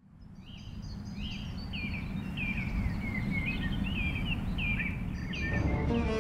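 Birds chirping, many short whistled calls one after another, over a steady low rumble of outdoor background noise that fades in at the start. Music comes in near the end.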